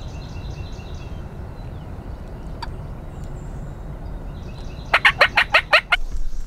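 A wild turkey tom gobbles once about five seconds in: one fast rolling burst of about seven notes lasting about a second. Under it runs a steady low rumble.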